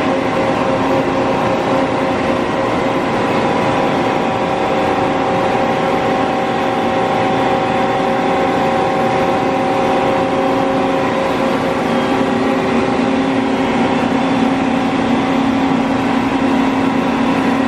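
FEMCO BMC 110R2 CNC horizontal boring mill running under power: a steady mechanical hum with several steady whining tones, the lowest tone growing stronger about twelve seconds in.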